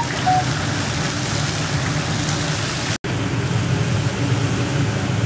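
Chickpea broth for pilaf simmering in a large kazan over a fire: a steady bubbling hiss. It cuts out for an instant about three seconds in.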